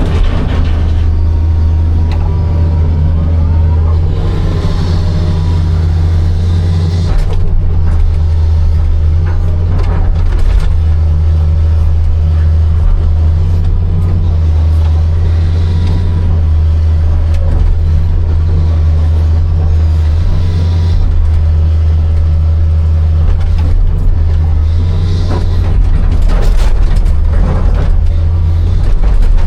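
Hitachi 260 excavator's diesel engine running steadily under load as it digs, with a hydraulic whine gliding up and down and occasional knocks of stone.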